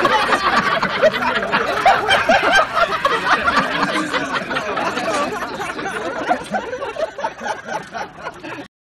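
A crowd laughing, many voices overlapping, in response to a joke's punchline; the laughter slowly fades and cuts off suddenly near the end.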